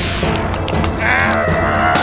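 Cartoon background music, with a high, wavering, bleat-like squeal from about a second in until near the end.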